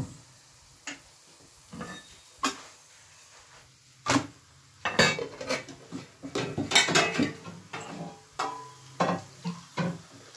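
A steel ladle clinking and knocking against a steel pot of chai, with other metal kitchenware clatter: separate sharp knocks, busiest in the middle.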